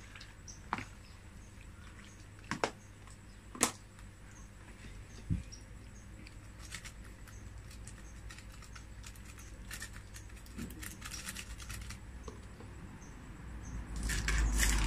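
Quiet kitchen handling: a few sharp clicks and knocks in the first few seconds as macaroni salad is mixed by hand in a plastic tray. From about halfway in come irregular runs of quick scraping strokes as a block of cheese is grated on a handheld metal grater, getting louder near the end.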